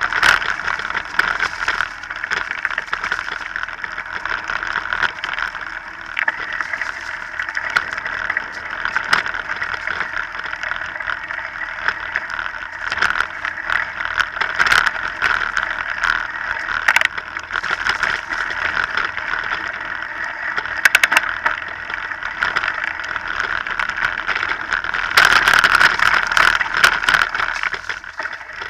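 Mountain bike riding over a dry, leaf-covered dirt trail: a steady rush of tyre and ride noise with frequent sharp rattles and knocks as the bike goes over bumps, busiest and loudest near the end.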